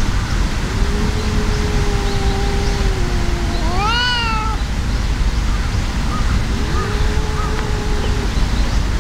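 Two stray cats growling and yowling at each other in a fight standoff: a long, low, drawn-out yowl, then about four seconds in a sharp cry that rises and falls from the white-and-tabby cat, then another low held yowl.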